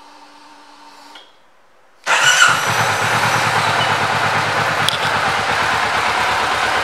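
2024 Kawasaki Vulcan S's 649 cc parallel-twin engine starting about two seconds in, catching at once with a brief rise in revs and settling into a steady idle. Before it, a faint steady hum stops about a second in.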